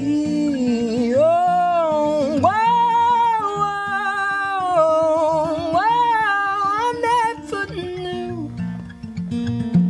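A man sings live with acoustic guitar, holding long notes with vibrato. The voice stops about three-quarters of the way through and the guitar plays on alone.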